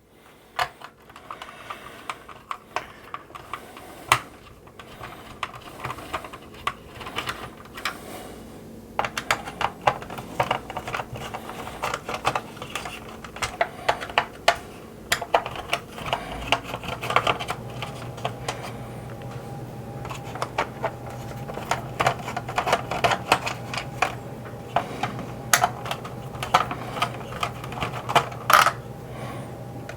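Screws being backed out of a 1983 G.I. Joe Skystriker toy jet's plastic shell: quick, irregular clicks and ticks of the screwdriver and of plastic being handled. A steady low hum comes in about halfway through.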